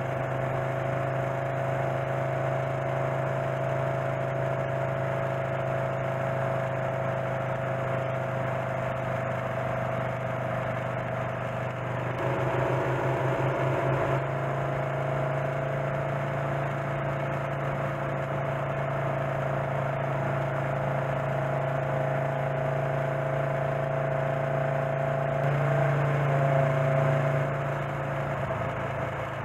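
1928 Norton motorcycle's J.A.P. engine running steadily at cruising speed, heard with wind and road noise from the rider's helmet. It gets louder for a couple of seconds about twelve seconds in and again near the end.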